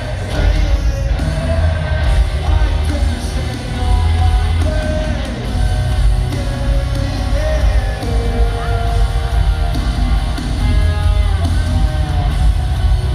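A rock band playing loud and live, with electric guitars, drums and heavy bass under a sung lead vocal, heard from the audience in an arena.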